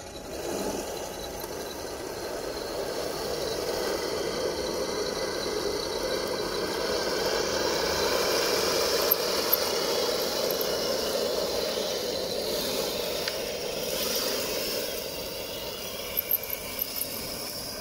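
Heng Long Leopard 2A6 radio-controlled model tank with metal upgrades driving over gravel: a steady mechanical running and rattling noise that swells toward the middle and eases off, with a few sharp clicks near the end.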